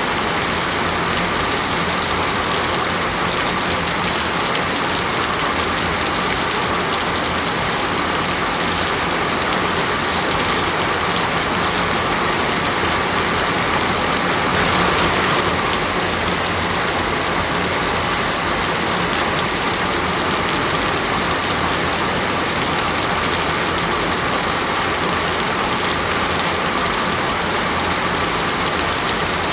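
Steady heavy rain falling and pattering on a surface, an even hiss with a slight swell about halfway through.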